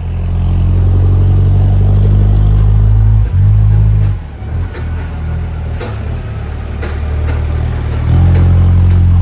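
Engine of an airport ground-support vehicle running steadily. It is loud at first, drops away about four seconds in, and comes back up strongly about eight seconds in.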